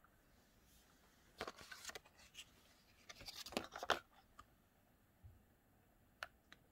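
Small plastic and glass cosmetic sample tubes and bottles being picked up and moved about by hand: two short spells of rustling and clicking, then two faint clicks near the end.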